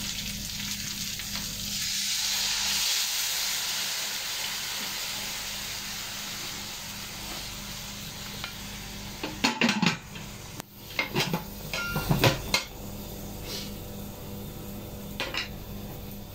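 Beef broth poured into a hot wok of fried tofu sizzles, the hiss swelling and slowly dying down. About nine seconds in come several sharp clinks and knocks of metal pots and cooking utensils.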